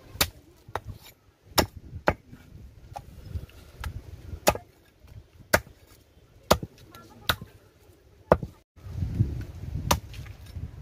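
Large curved knife chopping goat head meat on a wooden chopping block: about ten sharp chops, roughly one a second, unevenly spaced.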